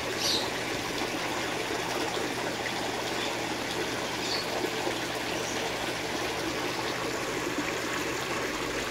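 Steady trickling and splashing of water running into a fish pond.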